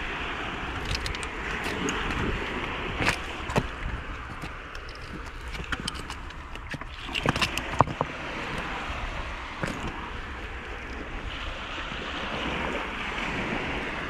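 Steady rush of sea and wind on a rocky shore, with wind buffeting the microphone, and scattered clicks and knocks from feet and hands on wet stones, the loudest about three seconds in and again between seven and eight seconds.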